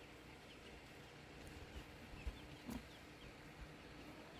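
Quiet outdoor ambience with faint, distant small birds chirping repeatedly and a couple of soft knocks near the middle.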